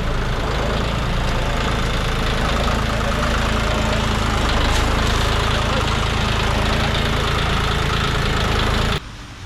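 An engine running steadily, which cuts off suddenly near the end.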